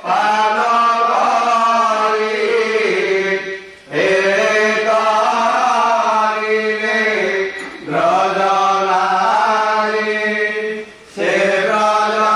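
A male priest chanting puja mantras in a steady melodic recitation, amplified through a microphone. He sings in long phrases, stopping briefly to breathe about every four seconds.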